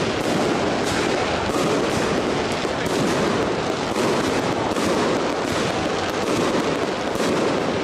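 Football stadium crowd noise with a dense, continuous crackle of firecrackers.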